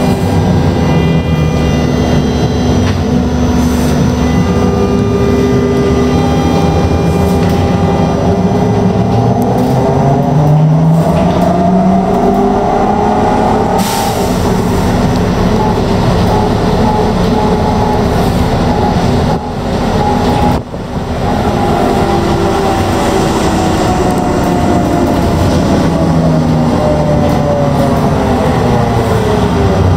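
Onboard a trolleybus, its electric traction drive whines over steady road and body noise. The whine climbs in pitch as the vehicle speeds up about ten seconds in, then slides slowly down as it slows over the last ten seconds. There is a brief dip in loudness around twenty seconds in.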